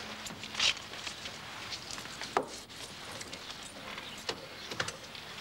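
Car door opened and a person getting into the driver's seat: a few scattered clicks and knocks from the door and the seat, the loudest about a second in.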